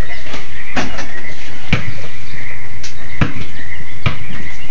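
A basketball bouncing on hard ground: four separate thuds at uneven intervals, over a steady high-pitched background noise.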